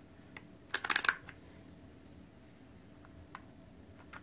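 A quick cluster of sharp plastic clicks and rattling about a second in, with a lone click before it and a few faint ticks later: a multimeter's rotary range dial being clicked over to the amps setting.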